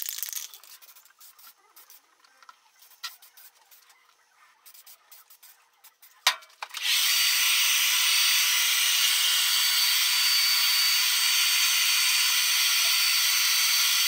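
A few light handling clicks and taps, then a sharp click, after which a hand-held hair dryer runs steadily about halfway through: an even hiss of blowing air with a thin high whine, drying fresh spray paint on a steel bracket.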